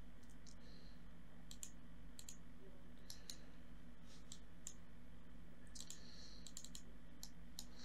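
Computer mouse clicking: a dozen or so sharp, irregularly spaced clicks, some in quick pairs, over a faint steady hum.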